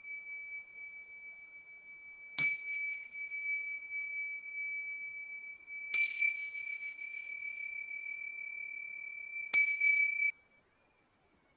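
A high-pitched Tibetan bowl struck three times, about three and a half seconds apart, each strike ringing on into the next as one steady high tone with a fainter higher overtone. The ringing stops abruptly near the end.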